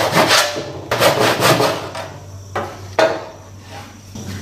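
Sharp wooden knocks as the partly sawn-out waste pieces are knocked out of a wooden stair stringer, a few blows with a pause between them.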